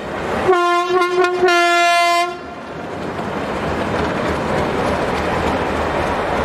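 TGM6A diesel-hydraulic shunting locomotive sounding a low horn, a few quick stuttering toots then held, cutting off about two and a half seconds in; then its diesel engine running and its wheels rolling on the rails as it passes.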